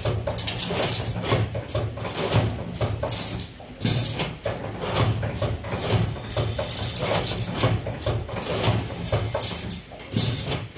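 2D CNC wire bending machine running, its bending head forming steel wire: a steady low hum under rapid clicking and rattling. It briefly drops away about 3.5 s in and again near the end as one piece finishes and the next begins.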